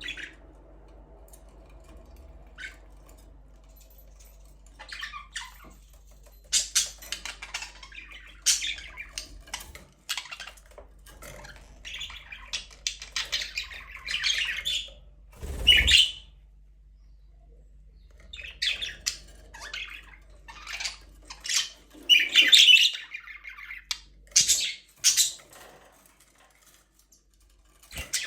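Budgerigars chirping and squawking in scattered bursts, with short quiet gaps between.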